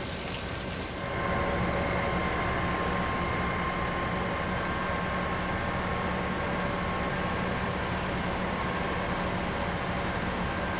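A steady mechanical hum over a noisy background wash, stepping up in loudness about a second in and then holding even.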